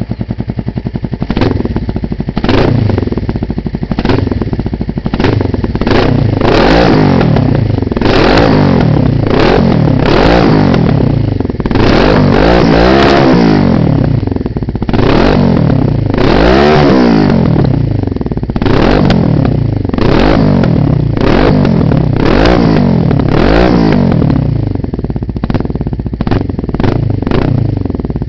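Kawasaki GPZ 500 parallel-twin engine revved through a Barracuda aftermarket silencer with its dB killer baffle removed. It is blipped over and over, about once a second, with a few longer, higher revs, dropping back to a loud, uneven idle between blips. Sharp cracks come through the exhaust.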